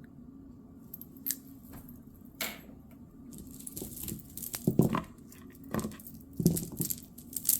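Costume jewelry being handled and set down: scattered small clicks and clinks with light rustling, coming more often and louder in the second half.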